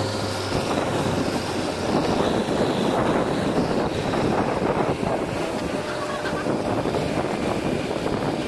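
Heavy diesel engine running steadily, with wind buffeting the microphone.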